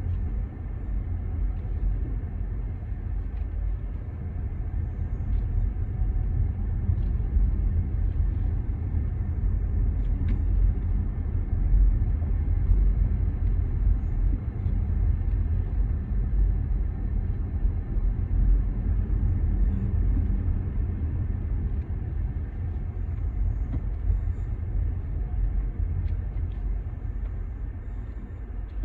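Steady low rumble of a moving vehicle, with no rhythm or pauses and a few faint clicks.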